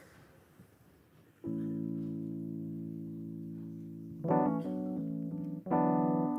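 Piano chords begin about a second and a half in, out of a faint room hush: one chord is held and slowly fades, then fresh chords are struck near the middle and again near the end.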